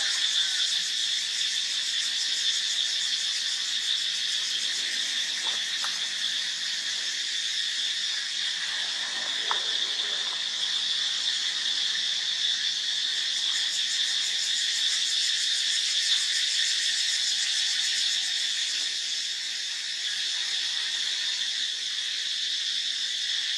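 Insects chirring in a steady, high-pitched chorus that holds unbroken throughout.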